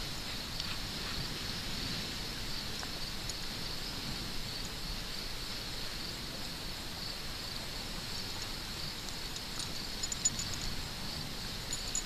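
Steady high-pitched chorus of insects in the background, with a few faint ticks near the end.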